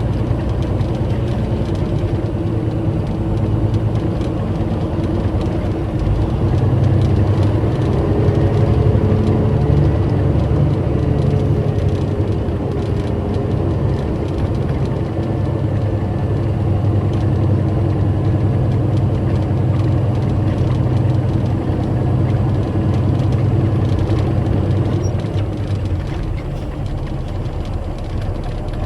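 Diesel semi truck engine running at low speed, heard from inside the cab while the truck is backed in; the steady low hum swells a little several seconds in and eases near the end.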